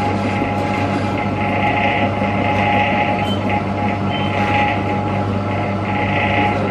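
Farm milk vending machine dispensing into a glass bottle: its pump runs with a steady hum, with a hiss of liquid that swells and fades a few times.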